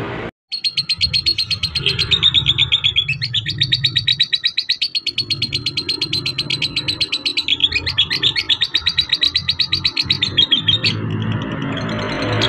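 Lovebird chattering in a long, rapid trill of high chirps, many a second. It starts about half a second in, breaks briefly twice and stops near the end, over background music.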